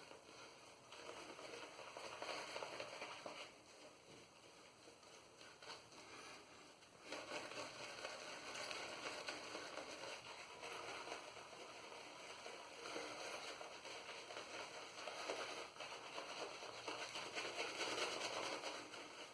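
Boar-bristle shaving brush swirling and whipping wet shaving-soap lather, a soft, continuous swishing and crackling that eases off for a few seconds in the middle and comes back louder. The lather is running dry and thin, and water has just been added to it.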